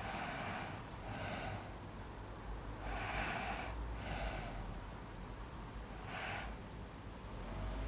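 A sleeping person snoring, with heavy breaths about three seconds apart. The first two breaths each come in two parts and the last is a single short one.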